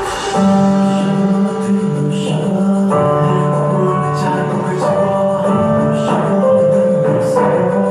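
K-pop song playing: held, steady chords with light percussive strokes, the deep bass dropping out just after the start.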